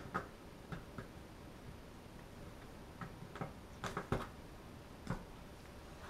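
A handful of light, irregular clicks and taps as a sleeved power-supply cable and its connector are handled and laid across cardboard.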